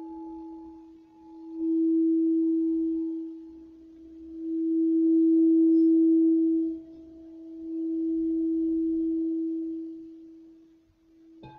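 Singing bowl ringing with one steady tone that swells and fades three times, then is struck again right at the end.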